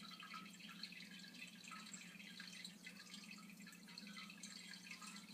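Faint, scattered light ticks and rustles of trading cards being handled and sorted, over a low steady hum.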